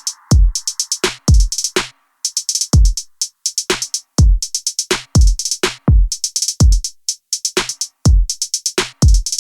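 Background electronic music with a drum-machine beat: deep kick drums falling in pitch and quick high hi-hat ticks. The music cuts off suddenly at the very end.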